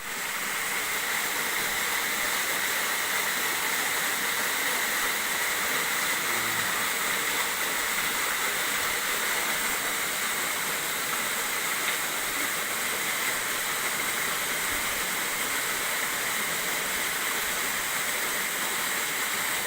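Nanayo Falls waterfall pouring steadily: an even, unbroken rush of falling water.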